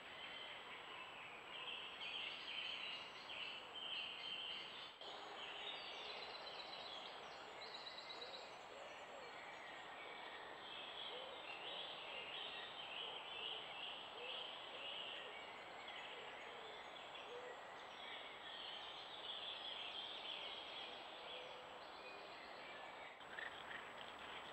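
Woodland birds singing and calling over the steady hiss of a trail camera's microphone, with a thin, steady high tone underneath. The sound breaks briefly about five seconds in and again near the end.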